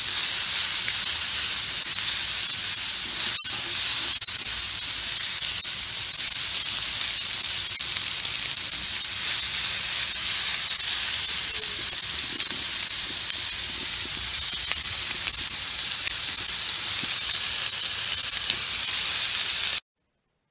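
Chopped onions sizzling steadily in fat on a hot Blackstone 22-inch flattop griddle as they are turned with tongs; the sizzle cuts off suddenly near the end.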